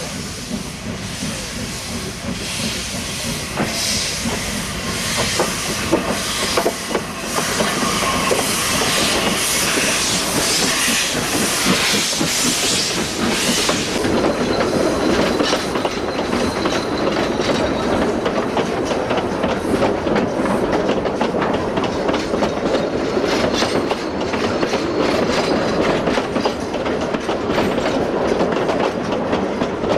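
Isle of Man Railway steam locomotive No. 12, a Beyer Peacock 2-4-0 tank engine, pulling away with slow, regular exhaust chuffs, about one a second, and steam hissing from its cylinder drain cocks. About halfway through this gives way to coaches rolling past close by, a steady rumble with the wheels clicking over the rail joints.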